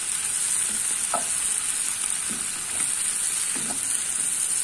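Green beans in tomato masala sizzling steadily in oil in a non-stick pan, stirred with a wooden spatula that scrapes through them a few times, about a second apart.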